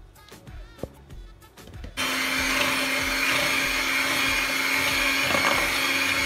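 Electric hand mixer whipping cream: the motor starts suddenly about two seconds in and runs steadily at one speed, a constant hum with a high whine over it.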